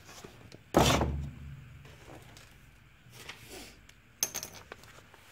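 A book handled and set down with a single heavy thump about a second in, followed by softer paper rustling and a few light clicks near the end.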